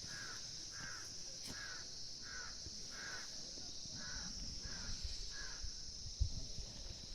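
An animal giving a short call over and over, about one and a half calls a second, pausing about five and a half seconds in, over a steady high-pitched shrill background. A single low bump about six seconds in.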